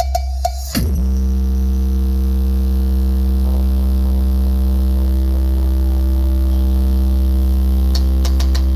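DJ Challenger 1600-watt bass speaker playing a deep, steady bass drone for a bass check. A few drum hits open it, then about a second in the pitch slides down into the held low tone.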